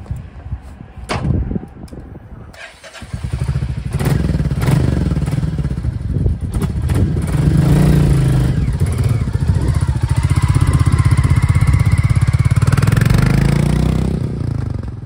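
Royal Enfield Classic 350's single-cylinder engine starts about three seconds in after a couple of knocks, then runs with an even, pulsing exhaust beat. Near the end it rises in pitch as the bike pulls away.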